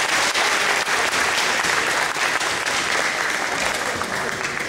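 Audience applauding, a steady mass of clapping that eases off slightly near the end.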